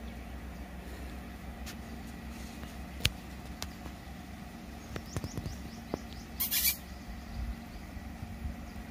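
Wild Asian elephant feeding in roadside scrub: sharp snaps of twigs, the loudest about three seconds in and a cluster a couple of seconds later, and a brief rustle of torn foliage about six and a half seconds in. Underneath runs a steady low engine hum, with a few faint bird chirps.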